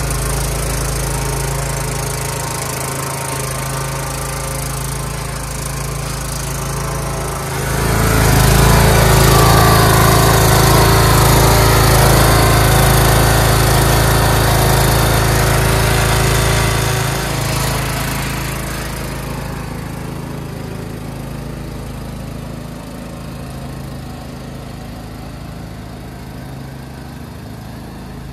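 Craftsman LT2000 lawn tractor engine running steadily while the tractor is test-driven. About eight seconds in it becomes much louder for several seconds, as if close by, then fades lower as the tractor moves away.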